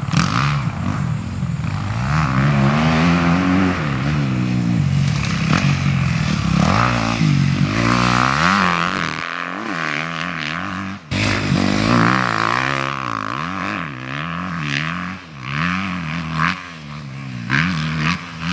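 Honda CRF single-cylinder four-stroke motocross bike ridden hard on a dirt track. The engine revs up and drops back over and over with throttle blips and gear changes through jumps and corners, with a brief break about eleven seconds in.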